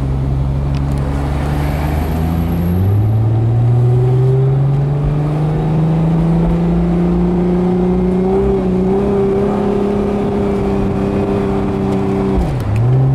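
Plymouth Prowler's 3.5-litre V6 running under way as the car accelerates gently, heard from the open cockpit. The engine note drops about three seconds in as the automatic gearbox shifts up, then climbs slowly and evenly, with another brief dip and recovery near the end.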